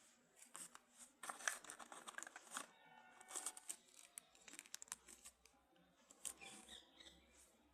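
Faint handling noise from a phone unboxing: packaging rustling and crinkling, with scattered light clicks and taps.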